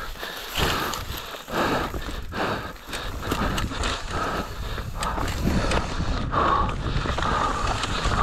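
Mountain bike clattering over rough, rocky trail: a run of irregular knocks and rattles, with wind rumbling on the microphone from about halfway through.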